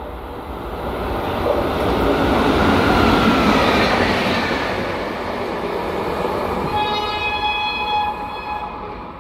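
Indian Railways WAP-5 electric locomotive and a single coach passing at speed: the rush of wheels on rail swells to a peak about three seconds in, then fades as the train draws away. A train horn sounds for nearly two seconds near the end.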